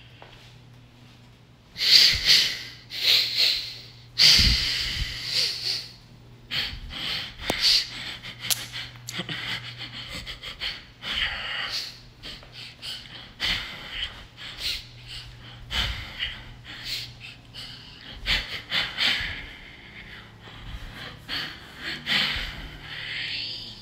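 A person's loud, breathy gasps and snorts in irregular bursts, the strongest about two and four seconds in, over a faint steady low hum.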